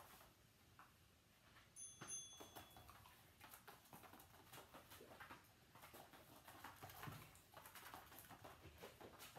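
Faint, irregular patter of a dog's paws and claws on a matted floor as it trots quickly around. A short, thin electronic beep sounds about two seconds in.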